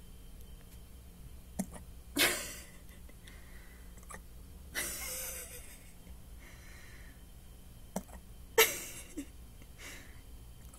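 Hiccups: two sharp, sudden hiccups about six seconds apart, each cutting off quickly, with a softer breathy sound between them.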